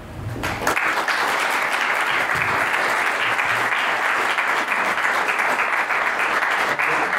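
Audience applauding: many hands clapping, starting about half a second in and holding steady.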